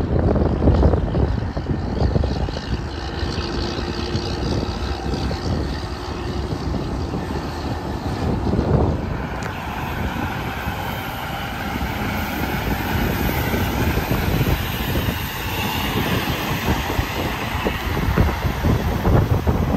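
Interstate highway traffic passing steadily, heavy trucks among it: a continuous rumble and tyre rush that swells and eases as vehicles go by, with faint whines from engines and tyres.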